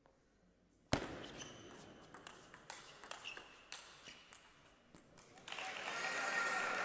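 Table tennis rally: a sharp crack of the serve about a second in, then the ball clicking off bats and table in quick back-and-forth for about four seconds. Applause starts when the point ends, about five and a half seconds in.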